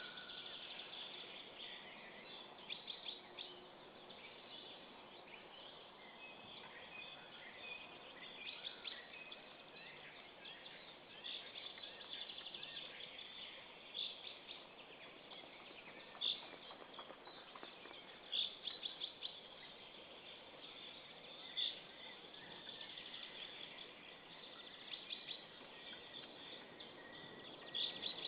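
Faint, scattered bird calls and short chirps, some coming in quick little clusters and a few single sharper calls standing out, over a faint outdoor background hiss.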